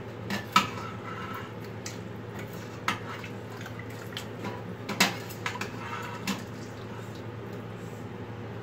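Metal ladle clinking and scraping against an Instant Pot's stainless steel inner pot and a serving dish while stew is ladled out: a handful of sharp clinks, the loudest about half a second in and about five seconds in, over a steady low hum.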